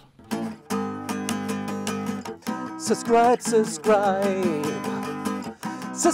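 Acoustic guitar strummed in a steady rhythm, with a man singing along from about three seconds in.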